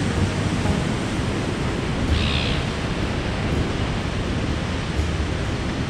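Small surf waves breaking and washing up the sand at the water's edge, a steady rushing wash, with a low rumble of wind on the microphone.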